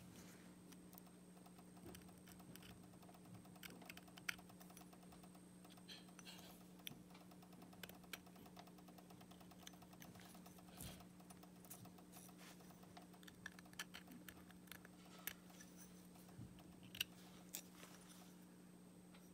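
Faint, scattered clicks and light scrapes of a small knife blade worked around the bite pocket of a silver-plated metal saxophone mouthpiece, trimming raised silver plating from the pocket's edges, over a low steady hum. A few sharper ticks stand out, about four seconds in and again near the end.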